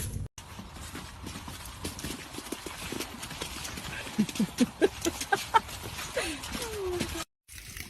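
Horse hooves clip-clopping in a quick run of knocks. About four seconds in, a run of short rising pitched calls stands out as the loudest part, followed by a longer falling call.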